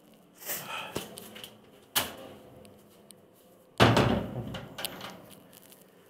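A door being handled: a short rustle, a sharp click about two seconds in, then a louder bang with a low thud that dies away over about a second.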